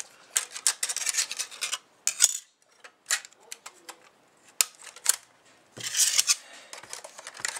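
Plastic PCMCIA slot blanks being worked out of a Dell Latitude C600 laptop's card slot: a quick run of plastic clicks and scrapes, then a few separate clicks and a short scrape about six seconds in.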